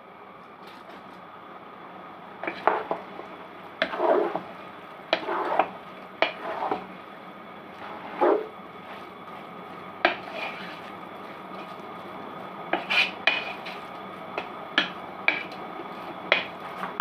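A spatula scraping and knocking against a pot while chicken keema is stirred, with irregular clinks and scrapes every second or two over a faint steady hum.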